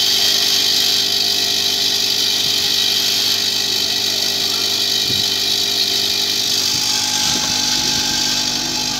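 Vibratory bowl feeder running with a load of small metal washers. Its electromagnetic drive gives a steady hum under a dense, even rattle of washers vibrating along the bowl's track.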